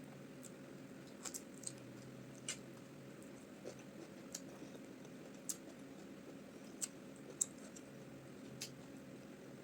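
Close-miked eating: scattered wet mouth clicks and smacks of chewing rice balls and beef in peanut soup, about ten in all at irregular spacing, over a steady low hum.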